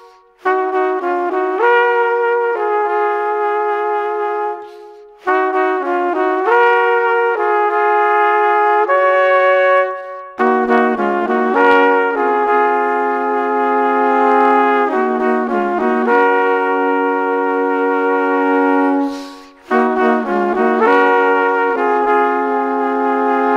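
Background music: a brass-like melody of held notes in phrases a few seconds long, with short breaks between phrases.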